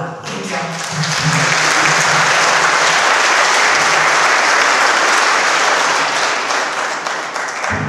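Audience applauding, swelling within the first second, holding steady, then fading out near the end.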